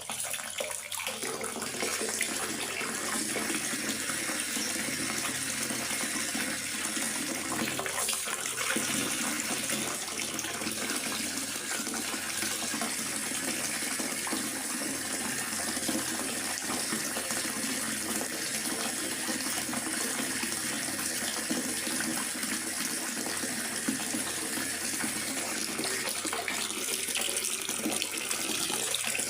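Steady rain falling in a forest, an even, unbroken hiss of water.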